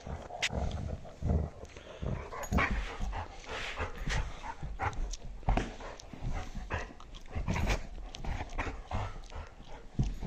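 An older dog and a nine-week-old puppy play-fighting at close range: a continual, irregular run of scuffles and snaps mixed with short growls.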